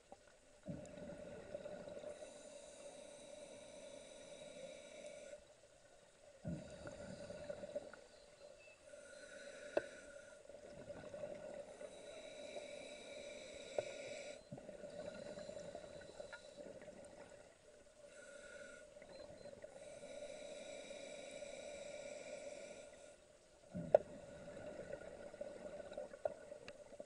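A scuba diver breathing underwater through the gear: slow breaths heard as stretches of hiss a few seconds long with short surges of bubbles between them, over a steady hum. A few sharp clicks, the loudest near the end.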